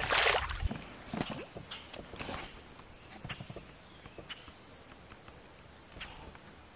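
A released bass splashing into the lake right at the start, followed by a few smaller splashes and knocks over the next couple of seconds, then quiet with a few faint ticks.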